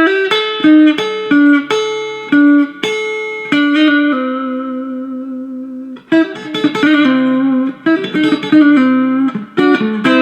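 Clean electric guitar playing a fast country chicken-pickin' lick with pick and fingers in banjo-roll patterns: quick separate plucked notes, with a short break about six seconds in before the phrase starts again.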